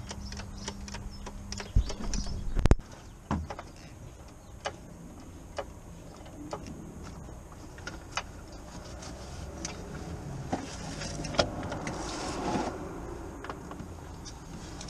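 Metal clicks and clunks from a trolley jack being worked under the gearbox, with two loud knocks about two seconds in and then single sharp clicks roughly once a second.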